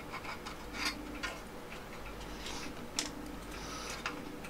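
Light clicks and scraping of fingers working DIP RAM chips out of and into their sockets on a Commodore C128 mainboard, with a few sharper clicks about one second and three seconds in.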